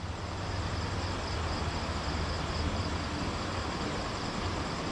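Steady background noise: a low hum under an even hiss, with a faint high pulsing trill.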